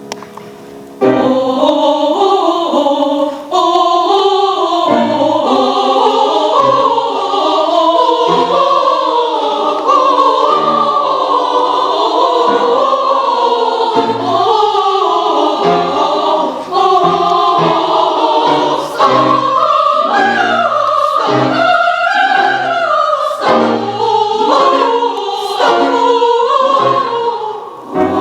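Academic women's choir singing a classical choral piece in several voice parts. The voices come in about a second in after a brief quieter moment, with short breaths or pauses between phrases.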